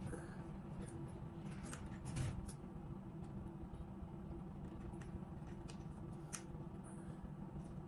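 Low, steady hum of the ferry's engines and machinery heard on board, with a few faint, scattered clicks.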